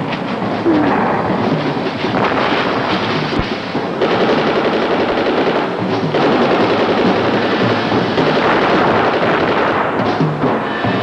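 Loud, continuous battle noise: rapid gunfire and explosions, with music under it.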